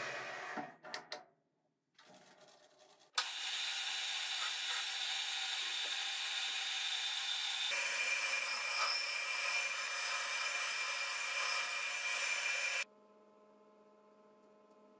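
Metal lathe cutting a steel tube with an insert cutting tool: a steady high whir with whining tones, changing abruptly once partway through. It cuts off suddenly near the end, leaving a faint low hum.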